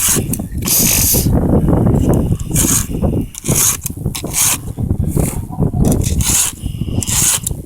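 A 3/16-inch round file rasping through the cutters of a chainsaw chain in short forward strokes, roughly one a second.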